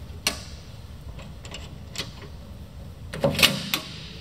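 Metal latch handle on a steel electrical cabinet door being turned and worked: a string of sharp clicks and clanks, with a louder cluster of metallic rattling about three seconds in.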